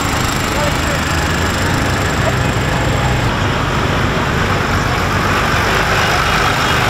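Tractor engines running as light-decorated tractors drive slowly past, a steady low engine sound under continuous noise.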